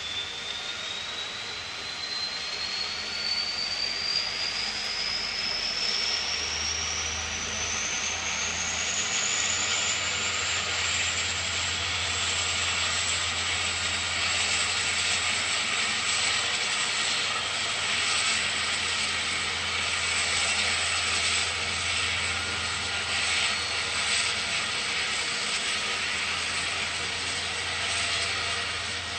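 Kvaerner Fjellstrand Flying Cat 40 catamaran ferry's engines and waterjets powering up to leave the pier: a high whine rises in pitch over about the first ten seconds, then holds steady over a loud rush of churned water and a low engine hum.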